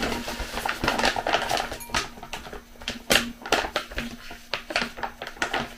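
Dry cereal flakes poured from a plastic bag into a glass bowl: quick, irregular ticks and patters of flakes hitting the glass, with the bag crinkling.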